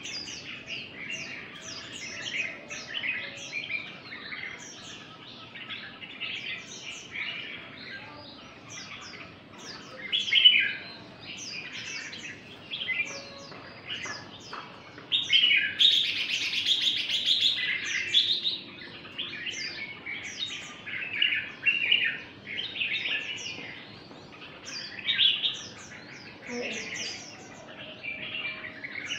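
Red-whiskered bulbuls singing continuous runs of quick chirping notes, many notes strung together in each phrase. The song swells louder about ten seconds in and again from about fifteen to eighteen seconds.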